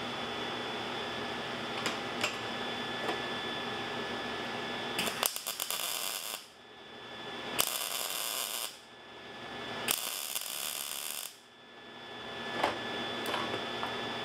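MIG welder striking three short tack welds on a steel sconce frame, each a crackling arc lasting about a second, starting about five seconds in and spaced a couple of seconds apart. Under it runs a steady shop hum, with a few light clicks of steel parts being handled before and after the welds.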